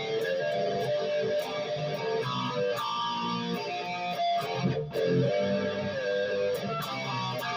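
Dean Switchblade ML electric guitar played through an amplifier: an improvised single-note melody with held notes and a string bend about six seconds in, and a short break just before five seconds.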